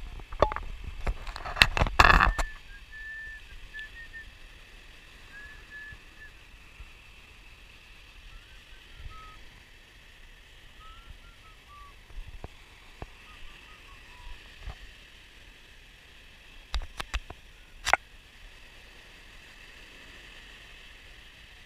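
Wind buffeting the microphone in loud bumps for the first couple of seconds, then a faint steady hiss of surf and wind with a string of faint short bird chirps. A few sharp clicks come about three-quarters of the way through.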